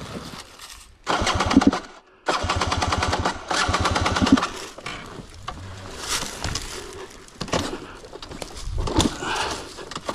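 KTM 300 XC-W single-cylinder two-stroke dirt bike engine firing with a rapid, even popping for about a second and cutting out abruptly. It catches again after a brief silence and runs for a couple of seconds before dropping back to a quieter, uneven sound.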